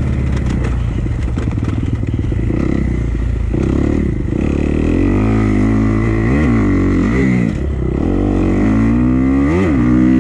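Dirt bike engine running hard, its pitch rising and falling as the throttle is worked, with quick blips up and back down about six and nine and a half seconds in.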